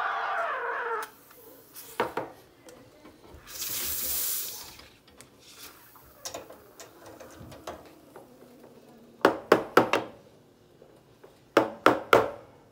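Steam wand frothing milk in a stainless pitcher: a whistling hiss that drops in pitch and cuts off about a second in. Then a cloth rubbing over the glass stovetop with a short hiss, and two quick runs of sharp knocks, about four each, near the end.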